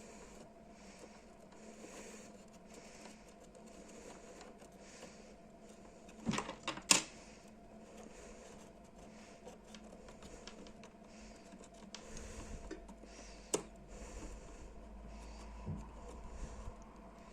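Small tool clicks and taps on a workbench during soldering work: a quick cluster of sharp clicks about six seconds in and a single click later, over a faint steady electrical hum.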